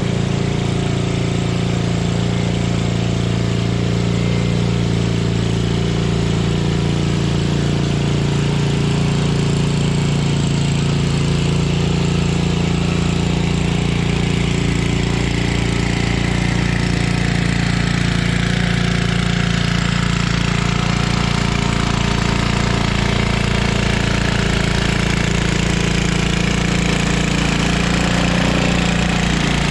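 1976 Ariens Sno-Thro snowblower's small single-cylinder engine running steadily while clearing heavy wet snow.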